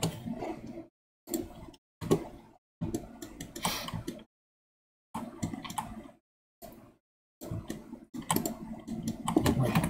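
Computer keyboard and mouse clicking in short bursts. The sound cuts off abruptly to silence several times between the bursts.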